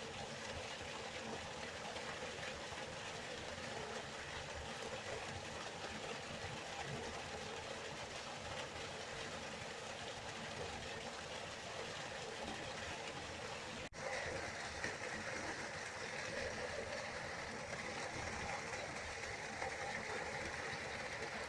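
River water rushing steadily. About two-thirds of the way through it drops out for an instant and comes back a little louder and hissier, as at a splice between recordings.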